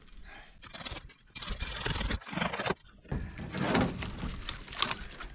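A canoe hull scraping over dead branches, with brush rustling, as the canoe is pulled through a pile of sticks across the channel. It comes in several irregular bursts, the loudest about four seconds in.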